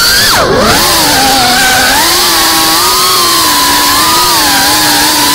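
Brushless motors and ducted propellers of a GEPRC Cinelog35 cinewhoop FPV drone whining in flight. The pitch drops sharply under half a second in as the throttle comes off, then climbs back and holds fairly steady.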